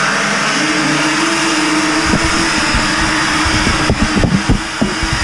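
Compressed air blasting out of a tub spout through an opened shower valve, a loud steady hiss with a steady tone under it, turning to irregular sputtering and popping from about two seconds in. It is the air blow-out of the plumbing for winterization, purging the water from the line.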